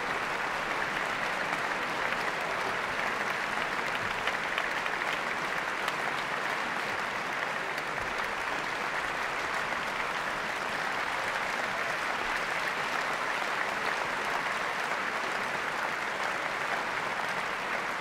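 Concert hall audience applauding steadily, dense clapping with no music.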